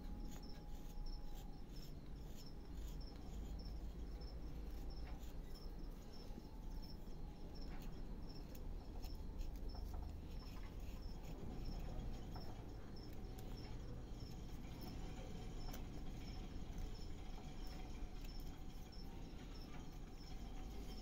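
Small knife whittling a piece of wood by hand: soft scrapes and small irregular clicks as the blade cuts chips from the carving. A faint high chirp repeats evenly a few times a second behind it.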